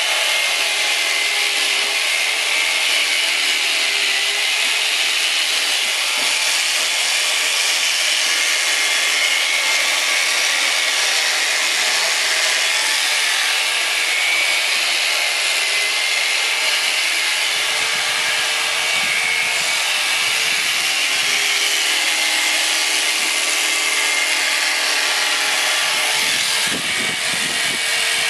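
Electric shearing handpiece running steadily as it cuts through alpaca fleece.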